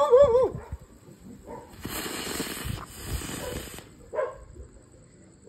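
A ground firework hisses as it sprays sparks, for about two seconds starting a couple of seconds in. A short wavering cry comes right at the start.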